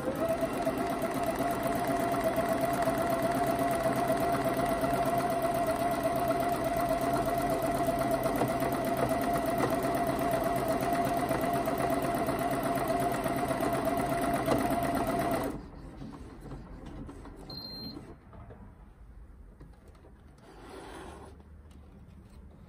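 Janome 1030MX computerized sewing machine sewing a buttonhole with its buttonhole foot, running the stored buttonhole size from memory. It speeds up at the start, stitches steadily for about fifteen seconds, then stops suddenly. Quieter handling of the fabric follows, with a brief high tone a couple of seconds after it stops.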